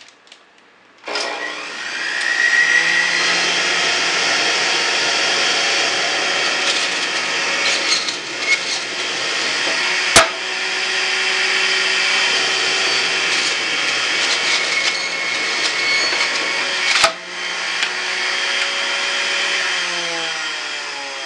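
Electric centrifugal juicer starting up about a second in and then running with a loud, steady whine as leafy greens (kale, spinach, arugula, chard, watercress) are pushed down its feed chute. Two sharp knocks cut through the whine, one about halfway through and one about three-quarters of the way through.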